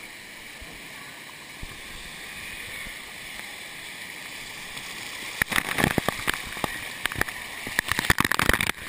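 Steady hiss of water pouring from a pool waterfall, then from about five seconds in, heavy splashing and spattering close up as the falling water strikes right by the microphone, loudest near the end.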